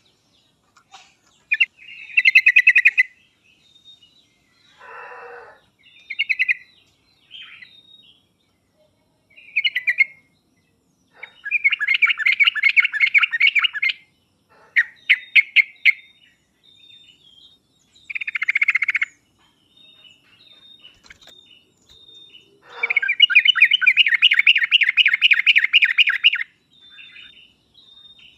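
Yellow-vented bulbul (trucuk) singing: bursts of rapid, bubbly chattering phrases, each one to three seconds long, separated by short pauses. The longest phrase comes near the end.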